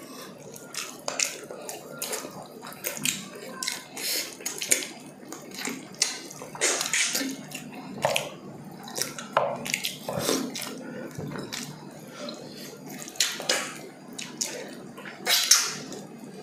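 Close-up wet eating sounds: lip-smacking, chewing and sucking as two people gnaw saucy pork ribs by hand, with many short wet clicks. Longer sucking noises come about seven seconds in and near the end.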